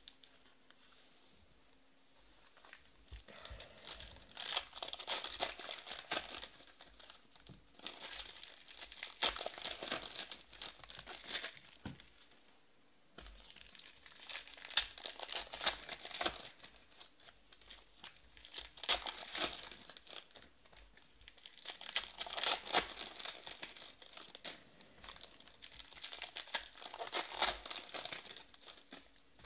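Foil wrappers of 2019 Panini Stars & Stripes Baseball card packs being torn open and crinkled by hand. The crackling comes in several bursts of a few seconds each, with short lulls between them.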